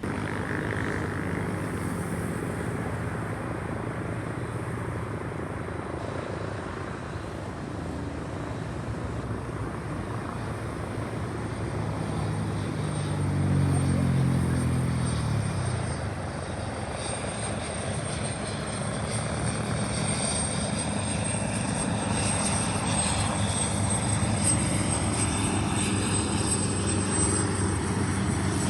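Airliner engines running: a steady rush with a low hum that drops in pitch as the aircraft passes about halfway through, loudest there. A thin high whine carries on through the second half.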